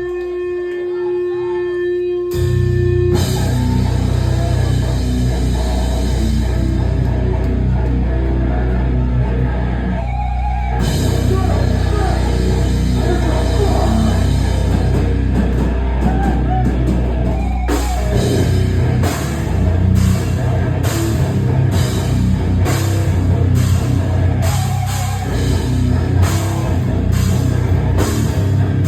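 Hardcore band playing live and loud: a single held guitar note, then the full band crashes in about two seconds in with distorted guitars, bass and drums. In the second half the cymbals hit on an even, pounding beat.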